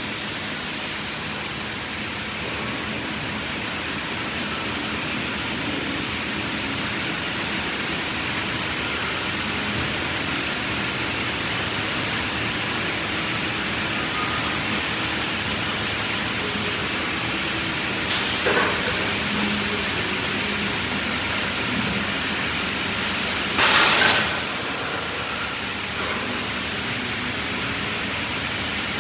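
CNC panel saw running with a steady, even noise throughout. Two brief louder bursts break through: a short one about two-thirds of the way in, and a stronger one of about half a second near the end.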